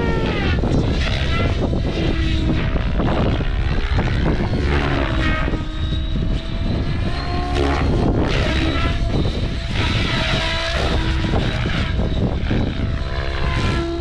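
OMPHOBBY M7 electric RC helicopter flying, its rotor and motor buzz gliding up and down in pitch as it manoeuvres, over heavy wind buffeting on the microphone.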